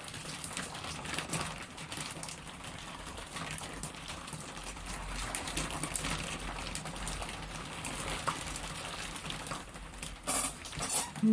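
Wet hands working clay on a potter's wheel: a steady wet patter and slip noise with many small ticks over a faint low hum, and a louder patch of it about ten seconds in.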